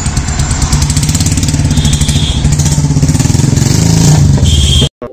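Royal Enfield Classic 350 Reborn's single-cylinder engine running loud through an aftermarket HK Mini Punjab exhaust, with a steady rapid pulse. It grows louder as the bike pulls away, then cuts off suddenly near the end.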